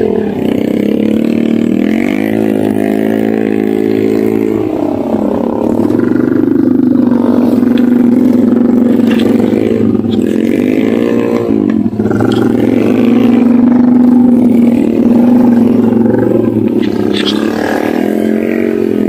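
Honda EX5 underbone motorcycle's single-cylinder four-stroke engine running close by, revving up and down with stretches held at a steady speed.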